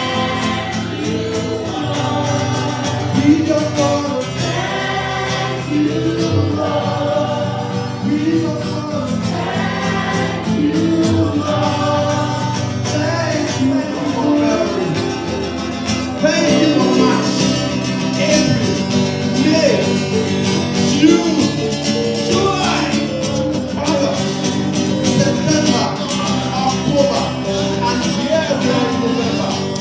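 Gospel praise music with group singing over instrumental backing and a tambourine.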